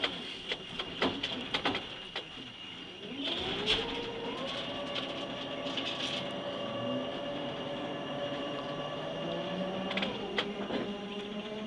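RDK-200 grab crane's drive machinery: a run of clicks and knocks, then a pitched whine that rises a few seconds in and holds steady while the clamshell grab lifts and swings. The pitch drops near the end.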